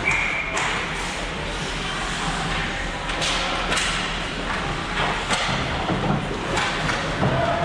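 Ice hockey play in a rink: repeated sharp knocks and thuds of sticks, puck and players against the boards over a steady murmur of the crowd, with a brief high whistle-like tone at the very start.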